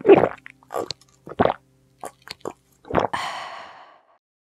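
Drinking sound effects for a cartoon character: a few loud gulps from a mug in the first second and a half, then a sharp knock about three seconds in followed by a breathy sound that fades over about a second.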